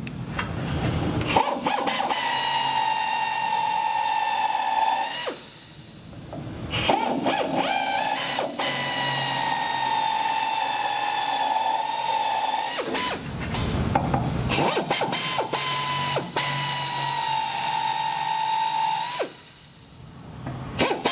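Pneumatic air drill whining at a steady high pitch as it drills out the heads of the rivets holding an aircraft wing skin, with a bit one size smaller than the rivet head. It runs three times for several seconds each, with short pauses and a few clicks between the runs.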